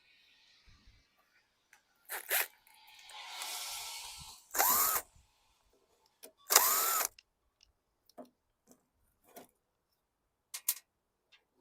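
Cordless drill-driver with an 8 mm socket running in short bursts, backing out sheet metal screws. The two loudest runs come about two seconds apart, each a whine that rises as the motor spins up. Light clicks follow.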